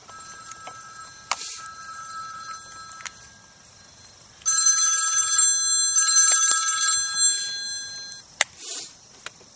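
Mobile phone ringing: an electronic ringtone of several steady high tones, faint at first and much louder from about halfway through for some three seconds.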